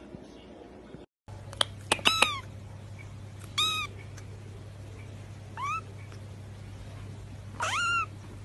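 Young kitten mewing: four short, high mews spread a second or two apart, one of them rising in pitch.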